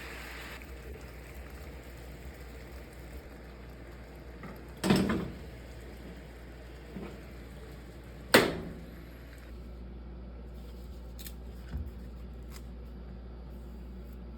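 Kitchen handling sounds: two loud knocks about five and eight seconds in, then a few lighter clicks and taps, over a steady low hum.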